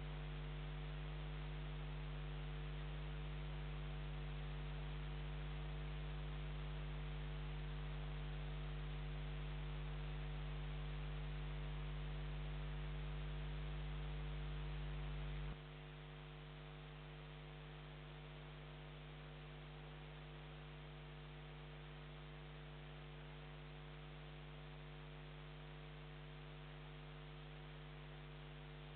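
Steady electrical mains hum with a faint hiss, a camera's audio pickup with nothing else plainly heard. About halfway through the hum drops abruptly to a quieter level, its deepest tones falling away.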